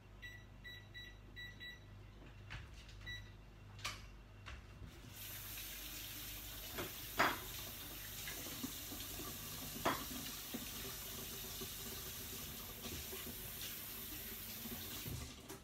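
A run of short electronic beeps, about six in quick succession and one more a second later, as a kitchen timer is set. About five seconds in, a tap starts running into a sink, with two sharp knocks under the running water, and it shuts off near the end.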